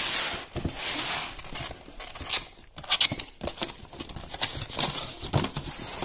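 A cardboard box being opened by hand. First come two long scraping, tearing rasps as the sealed top is worked loose, then a run of sharp cardboard clicks and knocks as the flaps are pulled open.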